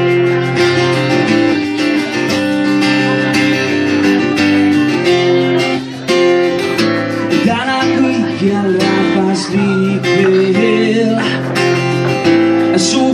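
Acoustic guitar strummed live, playing the instrumental introduction of a song before the vocals come in.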